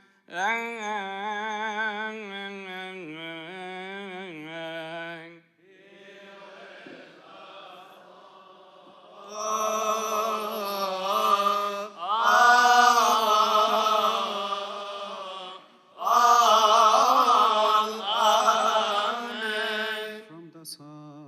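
Coptic liturgical chanting: a single male voice chants a wavering, ornamented line for about five seconds, then after a quieter stretch louder group chanting comes in, in several phrases with short breaks between them.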